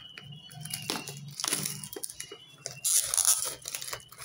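Clear plastic shrink-wrap being peeled off a cardboard product box by hand, crinkling and crackling in irregular bursts, loudest about three seconds in.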